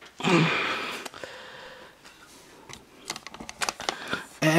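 Handling noise from a laptop being unpacked and opened: a rustle lasting about a second near the start, then a run of light clicks and taps from the lid and body. A man's voice starts briefly at the very end.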